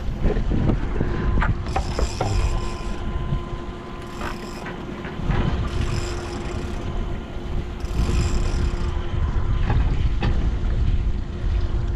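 Wind rumbling on the microphone over a boat's outboard engines idling in neutral, with four short bursts of a big-game fishing reel being wound, about two seconds apart, as the angler pumps and reels against a hooked fish.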